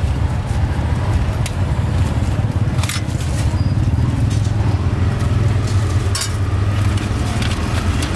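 Steady low rumble of street traffic, with a few sharp clicks and crackles scattered through it from gloved hands handling a crusty baguette and pork filling.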